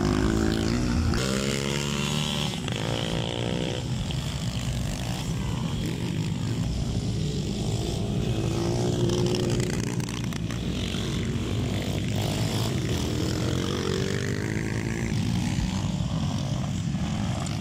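Motocross motorcycle engines racing around a dirt track, revving up and easing off as the bikes pass, with the strongest revs about two seconds in and again around nine seconds.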